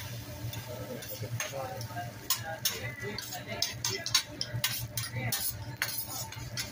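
Metal spatula and fork clicking and scraping on a steel teppanyaki griddle as fried rice is chopped and turned, in irregular quick strikes that grow denser and louder in the second half, over a steady low hum.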